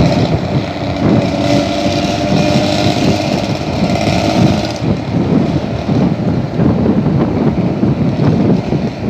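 Engine running steadily through a loud, open exhaust with a rough, fierce snoring note. A higher hiss stops about halfway through.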